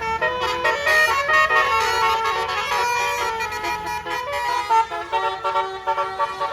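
Bus 'basuri' telolet air horn playing a quick tune, several horn tones sounding together and stepping from note to note.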